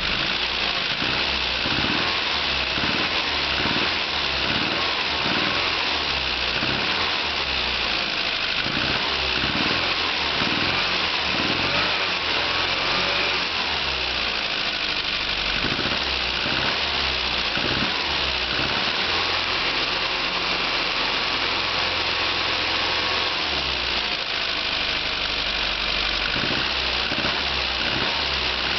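Austin Mini 1300's A-series four-cylinder engine running on choke and being revved up and down several times. On the accelerations it makes an abnormal noise that goes away at steady revs, which the owner takes for a sign of a failing engine.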